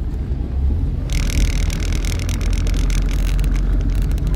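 Volkswagen car driving, heard from inside the cabin: a steady low engine and road rumble, with a crackling hiss joining about a second in.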